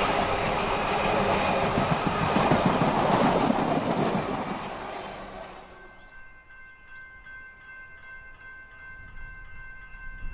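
Suburban electric train passing close by, its wheels rumbling and clattering on the rails, fading away over the first five seconds or so. Then, much quieter, a steady high whine.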